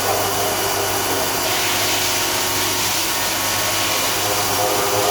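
CNC vertical machining center running, a steady whirring machine noise over a constant low hum.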